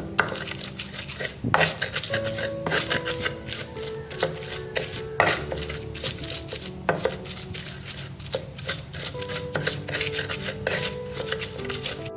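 Kitchen clatter: metal utensils and cookware repeatedly clinking and knocking, with many irregular sharp strikes, over soft background music.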